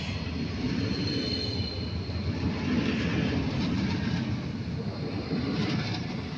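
Renfe Class 446 electric multiple unit pulling out of a station and passing close by: a steady rumble of wheels and running gear, with a thin high whine for a moment about a second in. The sound swells as the carriages go by and eases a little near the end.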